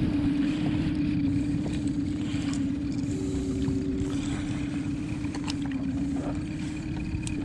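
Small outboard motor on an inflatable skiff running with a steady hum over a low rumble, with a few light clicks of fishing tackle being handled.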